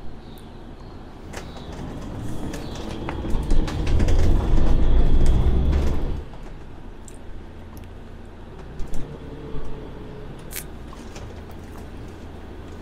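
Camper van heard from inside the cab, rolling over a brick-paved village street with a loud low rumble and rattling from about three to six seconds in. It then settles to a quieter steady engine idle as the van stands still, with a couple of short knocks.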